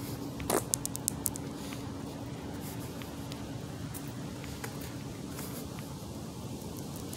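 Quiet outdoor background with a steady low hum. A quick run of sharp clicks comes about half a second in, and hand-held camera and footstep noise follows as the person filming walks along the road.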